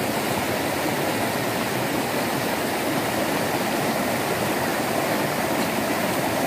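Shallow rocky river rushing over stones in small white-water rapids, a steady even rush of water.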